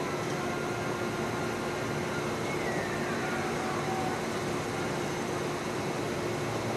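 Steady machine hum and hiss at an automatic train wash, its rotating vertical brushes running beside the train, with a faint falling whine about three seconds in.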